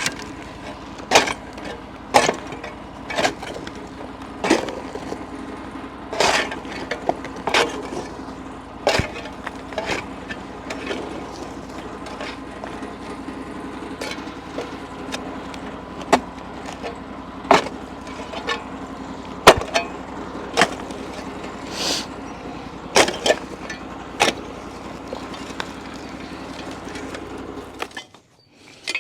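Mechmaxx 36-inch sawmill's engine idling steadily as it warms up, overlaid with sharp knocks and clacks about once a second. The engine sound stops just before the end.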